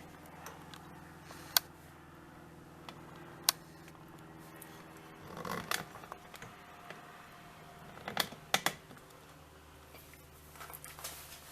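Handling noises: a few sharp clicks and taps with short scraping or rustling in between, over a steady low hum.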